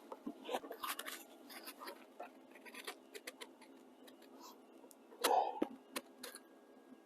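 Faint scattered clicks and taps from a welding torch being tried on the car's sheet-metal panel, with one louder brief noise about five seconds in. No arc is struck: the welder's earth clamp has not been connected.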